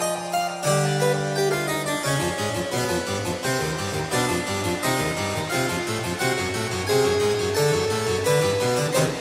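Instrumental background music with quick runs of short keyboard-like notes.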